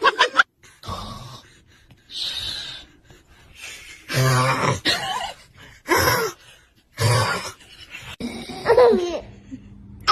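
A man snoring loudly in his sleep: short rasping snores a second or two apart, with other short breathy vocal sounds between them, and a short vocal sound falling in pitch near the end.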